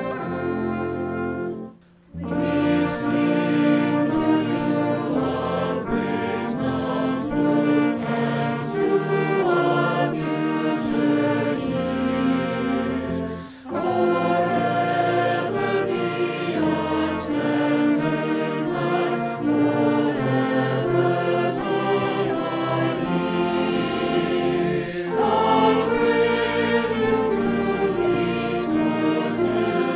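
A college alma mater sung by a mixed choir with a wind band of saxophones, flute, clarinet, tuba and trumpet, plus electric guitar, each part recorded separately at home and mixed together. The music briefly drops out about two seconds in and dips again about halfway through.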